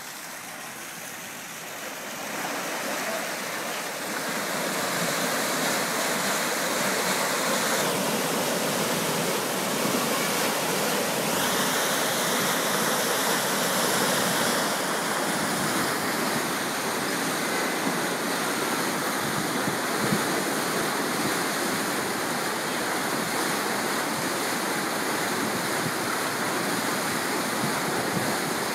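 Water rushing and churning into a lock chamber through its opened valves as the lock fills, a steady loud rush that swells over the first few seconds and then holds.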